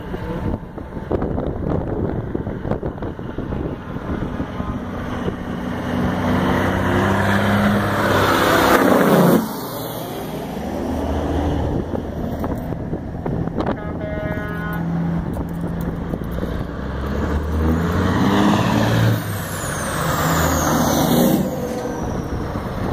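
Diesel semi tractors pulling past one after another, engines revving under load; one blows black smoke from its stack. The sound builds to two loud peaks, each ending in a sudden drop, about nine seconds in and again near nineteen seconds.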